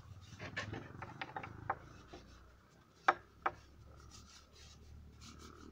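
Brush scrubbing lacquer onto a wooden stool's legs and rails, a dry scratchy rubbing with small ticks, then two sharp wood-on-wood knocks about three seconds in as the stool is tipped over.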